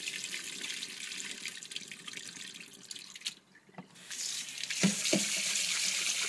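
Kitchen tap running into a stainless steel bowl while rice is rinsed by hand. The water breaks off for under a second just past halfway and then runs again, with a few dull knocks in the second half.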